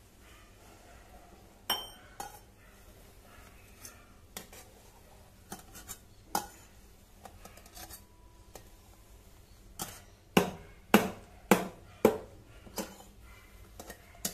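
Stainless steel milk pitchers clinking as frothed milk for a cappuccino is poured between them: a few scattered taps, then a quick run of about six sharp metallic clinks, roughly two a second, near the end.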